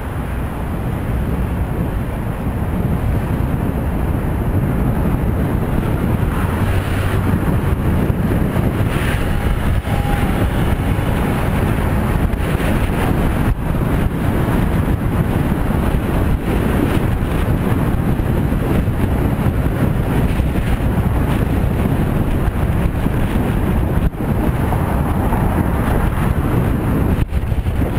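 Wind buffeting the microphone of a camera on a moving bicycle, a dense steady rush that grows louder over the first few seconds as the bike picks up speed, with road traffic running alongside.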